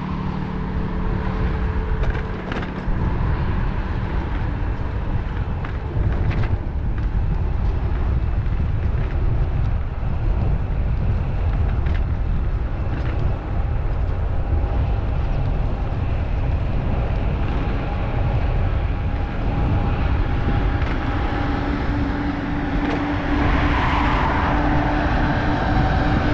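Wind rumbling on the microphone of a camera riding along on a moving bicycle, with road traffic going by alongside. Near the end, a train's steady hum grows louder as it approaches.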